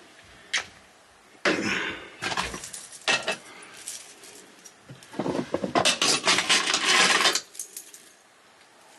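Small glass and metal objects clinking and rattling as they are handled. There are a few sharp clicks, then about two seconds of denser rattling before it goes quiet near the end.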